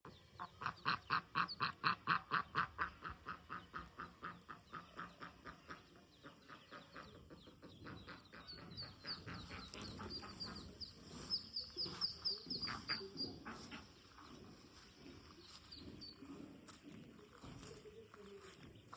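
A duck quacking in a rapid, even run of calls that grows loud and then fades away over about six seconds, followed by the high, thin peeping of ducklings.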